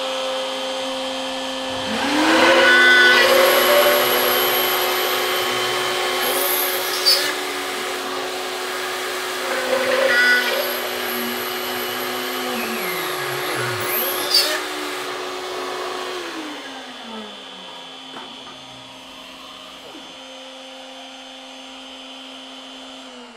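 A Shapeoko CNC router's spindle runs at low speed with a 6 mm drill bit, drilling holes in an aluminium plate. A vacuum cleaner starts about two seconds in and runs loud over the spindle, with a few brief high-pitched squeals as the bit cuts. A few seconds past the middle the vacuum winds down in a falling whine, leaving the spindle's steady whine quieter.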